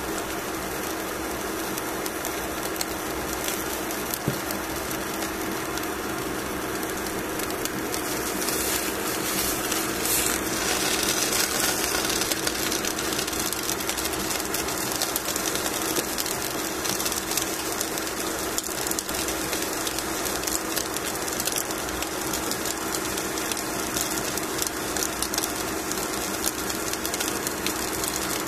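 Salmon fillet sizzling and crackling on aluminium foil in a hot pan, over a steady low hum. The sizzle grows louder for a few seconds about a third of the way in.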